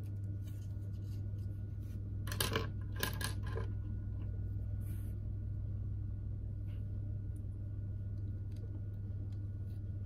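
Plastic LEGO pieces clicking and clacking as they are handled and pressed together, a short run of sharper clicks about two to three and a half seconds in, over a steady low hum.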